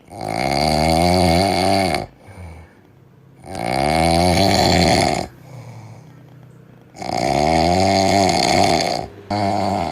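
A sleeping cat snoring: three long snores about three and a half seconds apart, each lasting about two seconds and rising then falling in pitch, with a shorter snore starting near the end and fainter breathing between.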